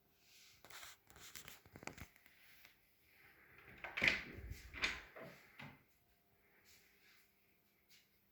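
Clicks and knocks of a door or cupboard being opened and shut, in two bursts, the loudest about four and five seconds in.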